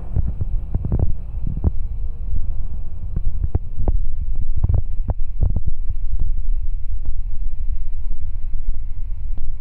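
A P&H mobile crane's engine running with a steady low rumble and hum while it works a lift, with wind buffeting the microphone. Scattered sharp knocks are heard, thickest around the middle.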